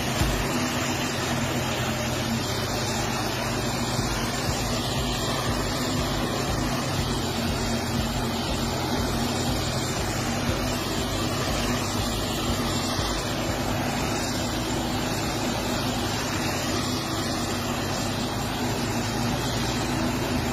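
Self-propelled forage harvester running under load as it chops a standing crop: a steady engine drone with an even rushing noise over it.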